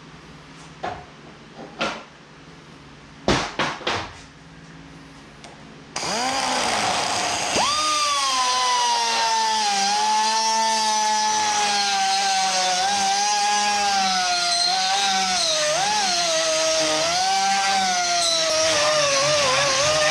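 A few clicks and knocks of parts being handled. Then, about six seconds in, a pneumatic die grinder starts and spins up to a high whine. It runs steadily while grinding inside the end of a steel tube, its pitch dipping and wavering under load.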